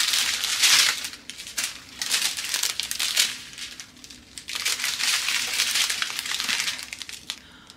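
Plastic crinkling and rustling from handling a strip of small plastic bags of diamond-painting drills. It comes in several bouts and dies down near the end.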